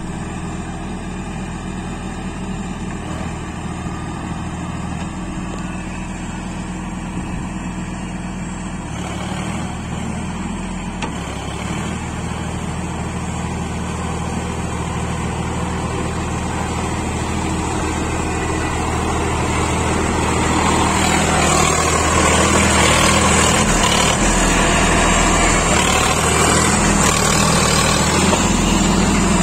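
Sonalika 50 RX Sikandar tractor's diesel engine running steadily under load while pulling a Shaktiman rotavator through a flooded paddy field. It grows louder as the tractor comes closer, and from about two-thirds of the way in a rushing noise of the rotavator and tyres churning mud rises over the engine.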